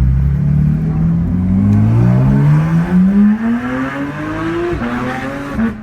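Porsche 992 GT3's 4.0-litre flat-six through an aftermarket FI exhaust, accelerating hard: the engine note rises steadily through the revs for about four seconds, then drops sharply near the end as it shifts up and starts climbing again.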